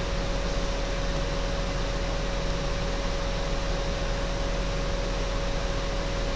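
Steady hiss with a low hum and a faint, even tone underneath, unchanging throughout: background noise such as a fan or microphone hiss.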